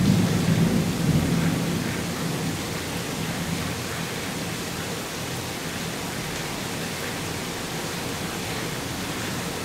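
A rumble of thunder starts suddenly and dies away over about two seconds, over the steady hiss of heavy rain.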